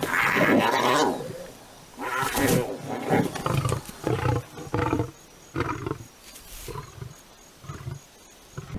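Lions snarling and growling in a fight with hyenas: a long loud outburst at the start and another about two seconds in, then a string of shorter growls that grow fainter toward the end.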